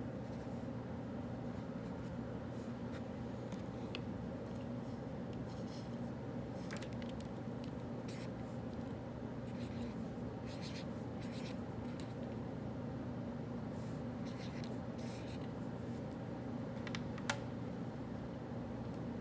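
Writing on paper in short, scratchy stretches while solving problems, over a steady low room hum, with one sharp tick near the end.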